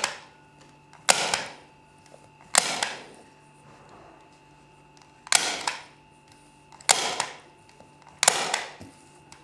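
Hand staple gun firing staples through fabric into a softboard panel: five sharp clicks, roughly one and a half seconds apart.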